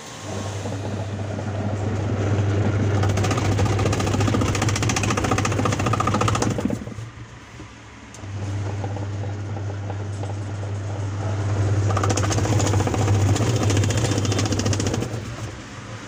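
Washing machine's wash motor running the pulsator through a newly fitted gearbox, with a steady motor hum and churning whir. It stops briefly about seven seconds in, then starts again and runs on, and eases off near the end. It runs as a repaired machine should, the new gearbox turning the pulsator properly.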